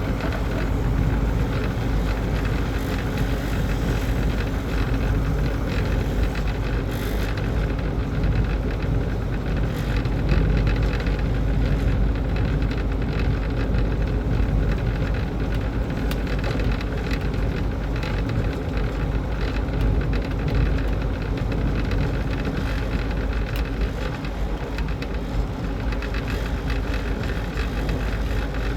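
Steady mechanical running noise with a constant low hum and a faint steady tone.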